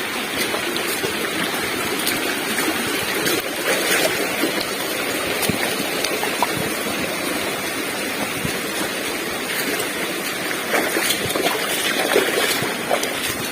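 Steady rushing of a mountain stream or small waterfall, water flowing over rocks.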